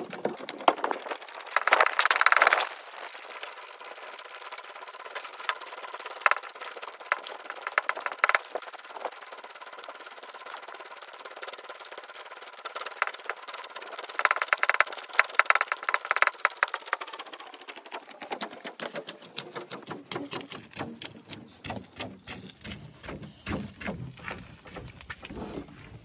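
Footsteps and carried gear on a portage trail, heard as a dense run of rapid clicks, knocks and rattles. There are louder scraping rushes about two seconds in and again around fifteen seconds in.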